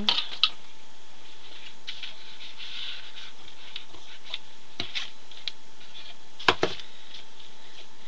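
Handling noises as silk fabric and tools are moved about: scattered light clicks and rustles, with one sharper click about six and a half seconds in, over a faint steady tone.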